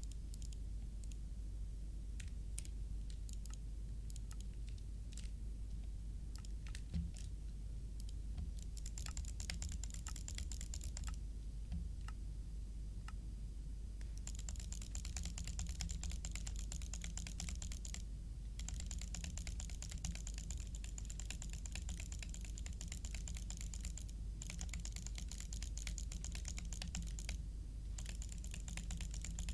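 Clicking on a computer keyboard: scattered single clicks at first, then long runs of rapid clicking broken by short pauses, over a steady low hum.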